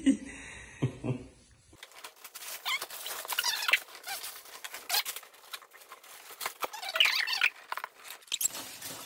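Christmas wrapping paper being torn off gift boxes and crumpled, a continuous crackly rustling with sharper rips, starting about two seconds in.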